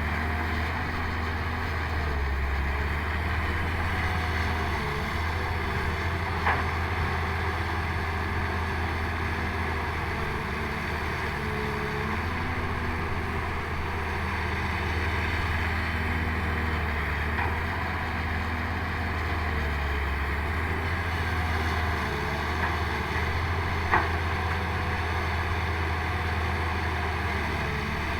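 Excavator's diesel engine running steadily under working load, with two sharp knocks: one about six seconds in and another near the end.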